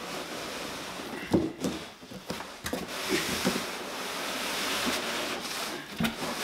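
Cardboard boxes being handled: an inner box sliding against its outer carton with a long, rough rubbing hiss, and a few light cardboard knocks, one about a second and a half in and another near the end.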